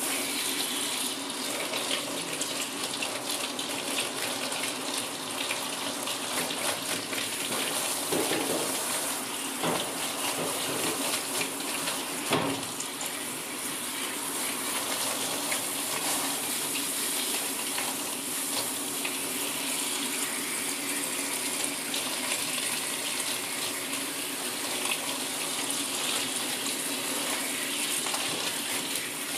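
Handheld shower head spraying steadily, the water splashing onto a dog's wet curly coat and into a grooming tub, with the spray partly covered by a hand to soften its force. There is a brief knock about twelve seconds in.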